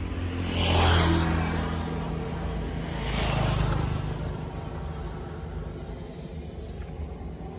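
Road traffic: two vehicles pass by, one about a second in and another about three and a half seconds in, each swelling and fading, over a steady low engine hum.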